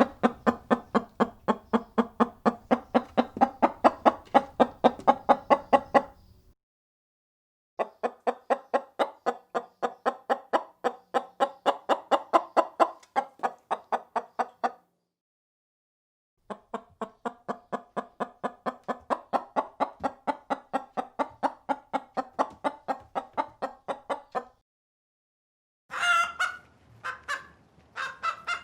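Chicken clucking in three long runs of quick, even clucks, about four a second, with pauses of a couple of seconds between runs. Near the end come a few louder, higher calls.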